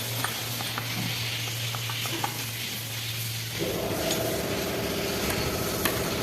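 Workshop noise: a steady low hum with small clicks of metal parts being handled, then a motor starts running about three and a half seconds in.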